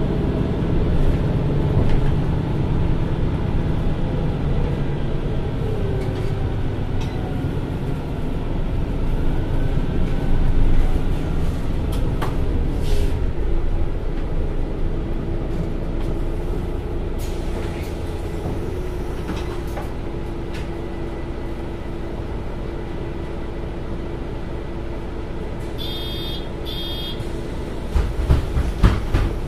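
MAN Lion's City city bus running, its diesel engine and drivetrain giving a whine that rises and falls through the first ten seconds, then settling to a steady hum. Two short high beeps near the end, followed by a few thumps.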